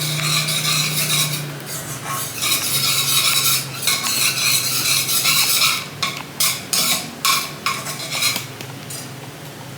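A utensil stirring and scraping a white-sauce base in a pan to keep it free of lumps, with a run of quick separate strokes late on before it quietens.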